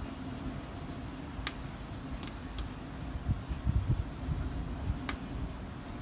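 Wood fire burning in a wood-fired water heater: a steady low rumble with a few sharp crackling pops, four of them spread through the few seconds.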